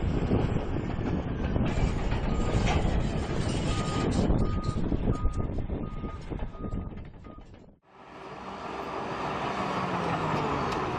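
Heavy machine's engine running, with a reversing alarm beeping six times, a little under a second apart, in the middle. Near the end the sound cuts out briefly and fades back in to another engine running.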